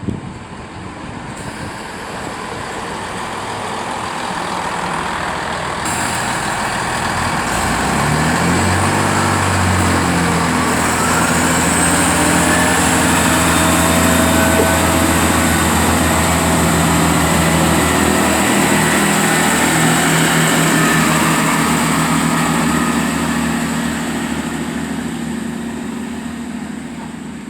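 Diesel train passing along the railway line. The engines can be heard working about a third of the way in, with a high, thin steady whine over the wheel and engine noise. The sound swells, holds loud for a long stretch, then eases off near the end.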